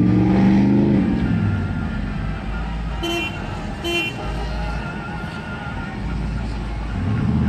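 Car engines revving in the street, where drivers are doing burnouts. A car horn gives two short toots about three and four seconds in.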